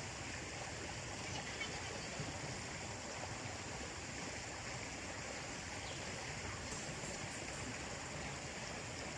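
Steady rushing of a river's running water.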